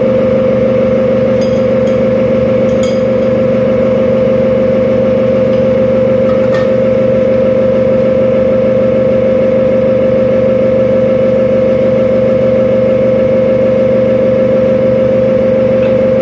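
Kitchen range hood extractor fan running at a steady, loud hum. A few light clicks, likely utensils on cookware, fall in the first half.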